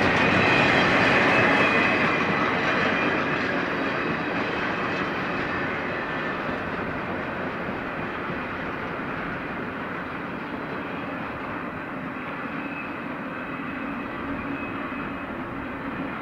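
Double-stack container train's well cars rolling on steel rails, the end of the train passing and the wheel-on-rail noise fading steadily as it moves away, growing duller as it recedes.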